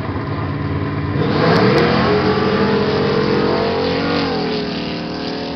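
Two drag-racing cars launching off the start line: the engines sweep up sharply to full throttle about a second in and run at high revs, the note dips and recovers about four seconds in, then fades as the cars pull away down the strip.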